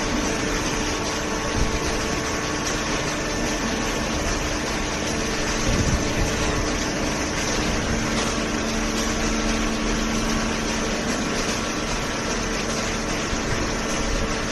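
Hydraulic cardboard baler running: a steady mechanical hum with a few steady tones over a broad hiss, and no distinct strokes or impacts.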